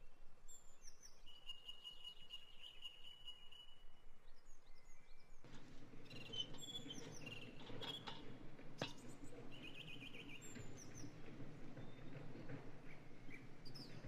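Songbirds chirping and whistling, one holding a long trilled note in the first few seconds. About five seconds in a steady low rushing noise sets in under the birdsong, and just past halfway there is a single sharp click, fitting a glass lid being set on the frying pan.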